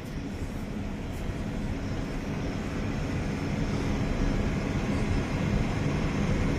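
Tractor engine running a bale shredder that is blowing out straw for bedding: a steady low drone under a hiss of noise, slowly growing louder.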